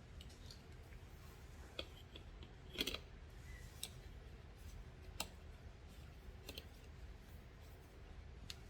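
Sparse light clicks and taps of gear being handled, the loudest a short clatter about three seconds in, over a low steady hum.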